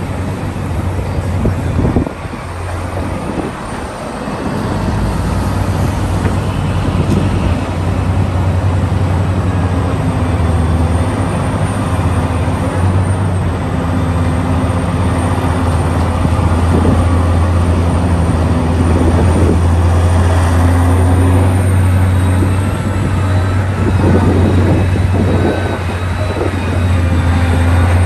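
Heavy excavator's diesel engine running under load: a steady, deep drone with mechanical noise over it, dipping briefly and building back up about four seconds in.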